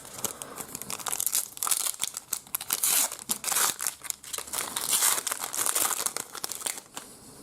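A trading-card pack wrapper crinkling as it is torn open and handled, with dense irregular crackles that die away near the end.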